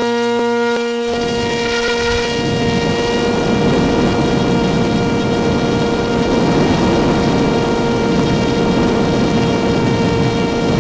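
Radio-controlled model plane's motor and propeller heard from on board, holding a steady high drone at full throttle. A rushing of air over the airframe and microphone joins about a second in and carries on under the drone.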